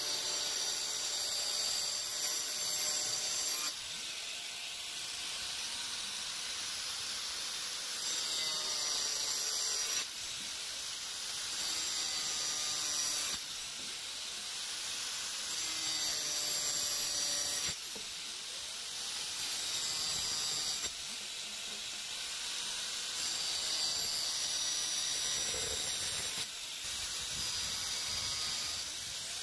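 Angle grinder with a cut-off disc cutting through PVC pipe. The sound comes in repeated stretches of a few seconds each as the pipe is turned and cut around its circumference, and the whine shifts in pitch as the disc bites.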